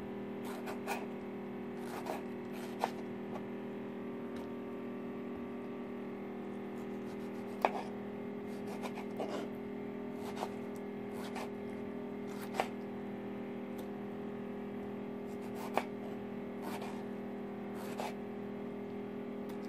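Kitchen knife cutting tomatoes on a wooden cutting board: sharp, irregular taps of the blade on the board, a second or more apart, over a steady low hum.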